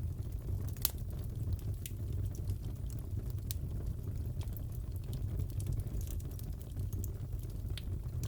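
Crackling fireplace: a steady low rumble of the fire with scattered sharp pops and snaps, one louder pop about a second in.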